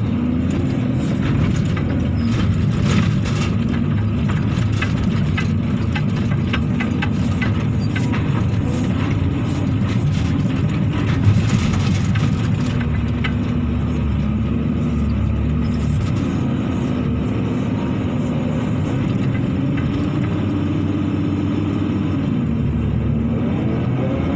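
Excavator's diesel engine running under load, heard from inside the cab, its pitch rising and falling slightly as the arm and bucket dig and lift soil. Scattered knocks and rattles, with one sharp knock about eleven seconds in.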